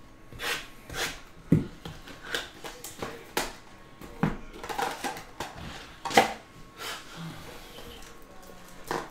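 Cardboard Topps Finest baseball card boxes and packs being handled and opened: scattered knocks, taps and rustles. The loudest knocks come about a second and a half, four seconds and six seconds in.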